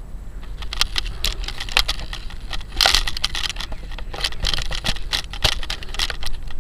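Irregular crackling and rustling of grass brushing against and being handled close to a camera's microphone, over a steady low wind rumble. The crackles come thick and fast, loudest about three seconds in and again past five seconds.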